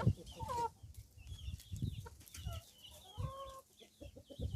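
Chickens clucking, several short bending calls one after another, over irregular dull low knocks.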